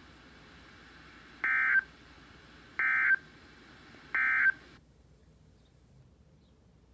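Three short bursts of SAME digital data tones from the NOAA Weather Radio broadcast, evenly spaced about 1.3 seconds apart: the end-of-message signal that closes an Emergency Alert System warning. The faint radio hiss underneath cuts off suddenly just after the third burst.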